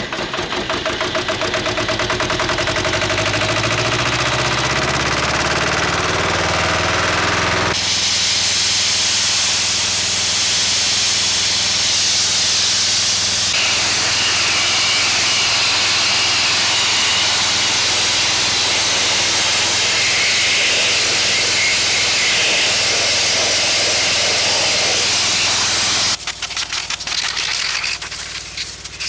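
Petrol-engined air compressor starting and running up to speed, then running steadily. About eight seconds in, a loud steady hiss of air blasting starts over the engine, the abrasive blast gun at work, and it stops shortly before the end.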